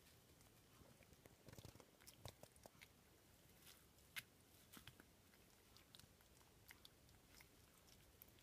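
A young puppy gnawing an Asda Hero dental chew stick: faint, irregular crunches and clicks of teeth on the stick, busiest in the first few seconds.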